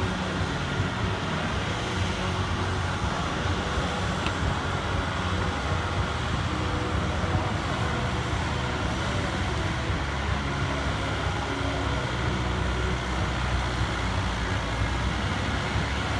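Farm tractor engine running steadily and hard, with no change in pitch, as when pulling the weight sled down the track.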